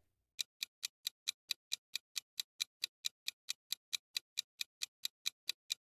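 Countdown-timer clock ticking sound effect for a quiz question: a steady run of short, even ticks, about four and a half a second, starting about half a second in.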